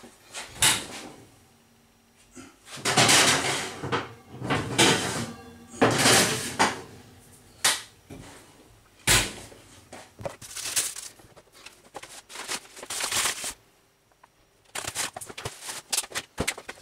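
Kitchen handling sounds: a run of knocks, clatters and scrapes as metal baking trays and utensils are moved and set down on a worktop. There is a sharp knock about nine seconds in and a quick patter of small clicks near the end.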